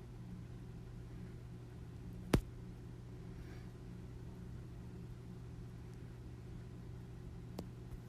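Steady low hum, with one sharp click a little over two seconds in and a fainter click near the end.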